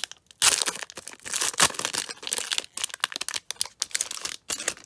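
Plastic wrapper of a 2019 Prestige football card pack being torn open and crinkled by hand, in quick irregular bursts of crackling with brief pauses.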